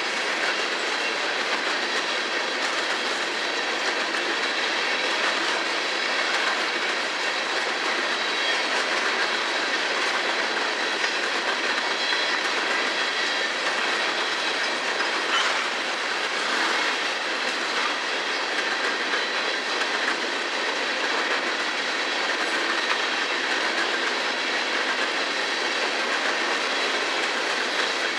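Empty coal gondola cars of a freight train rolling past at a steady speed: the even, unbroken noise of steel wheels running on the rails.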